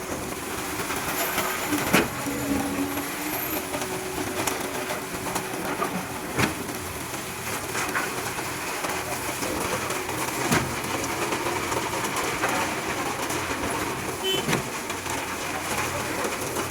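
Construction-site machinery running steadily during concrete work, with a sharp knock about every four seconds, the loudest about two seconds in.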